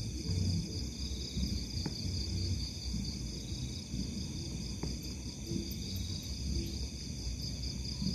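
A steady chorus of night insects chirring, over a low background rumble with a few faint clicks.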